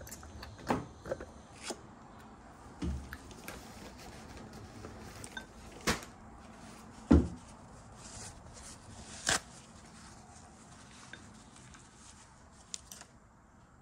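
Wooden chopsticks tapping and scraping against a ceramic bowl of noodles: scattered light clicks and knocks, with a louder low thump about seven seconds in.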